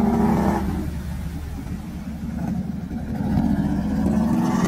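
Can-Am ATV engine revving as it drives through muddy water close by, then fading about a second in as it moves off; a second Can-Am ATV's engine grows louder near the end as it approaches through the water.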